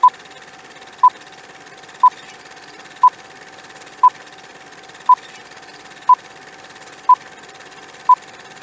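Countdown timer beeps: nine short beeps of the same pitch, evenly spaced at one a second, over a faint steady hiss and hum.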